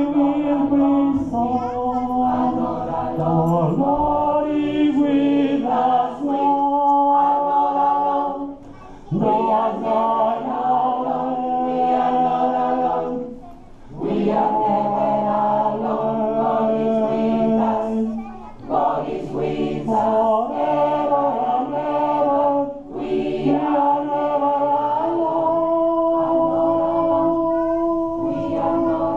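Gospel choir singing together in held, sustained phrases about four to five seconds long, with short breaks between them.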